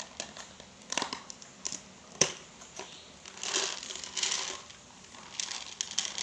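Plastic food packaging crinkling and crackling as it is handled, with sharp clicks and snaps, the loudest about two seconds in, and two longer bursts of crinkling a little past the middle.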